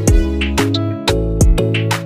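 Background music: plucked guitar-like instrumental with a steady beat.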